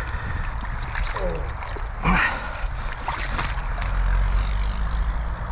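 Water sloshing and trickling in an ice hole as a musky is hauled up through it on a hand-pulled line, over a steady low rumble. There is a short breathy vocal sound about two seconds in.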